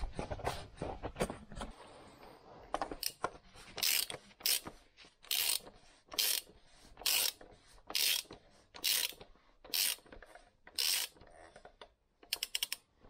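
Hand ratchet clicking in short bursts, about one a second, as it turns a 28 mm socket on the plastic oil filter housing cap of a 1.6 CRDi diesel engine, each burst a run of quick pawl clicks on the back-stroke. The first two seconds hold duller handling knocks.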